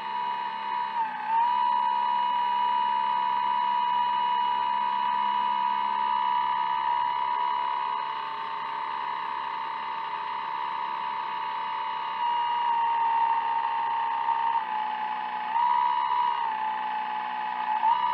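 Motor whine of an RC jetfoil model: a steady high tone that steps down and back up in pitch a few times near the end as the throttle changes.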